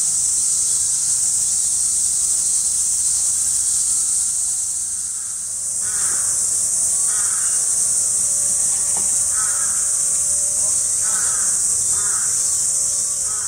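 Steady high-pitched insect chorus droning without a break. From about six seconds in, short calls come roughly once a second over it.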